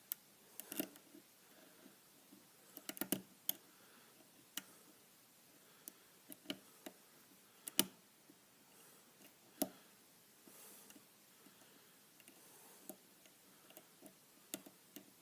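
Faint, irregular metallic clicks and taps of a lock pick and tension wrench working the pins of a pin-tumbler challenge lock, spaced a second or two apart.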